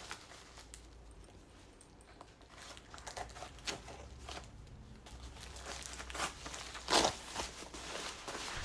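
A plastic-bag package being handled and opened by hand, in scattered short rustling strokes, the loudest about seven seconds in.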